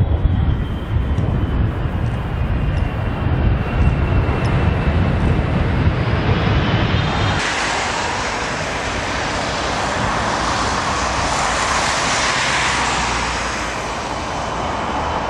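Boeing 777 airliners landing, one after another: first a deep jet-engine rumble, then after a sudden change about seven seconds in, a brighter, hissing jet-engine noise from a second landing.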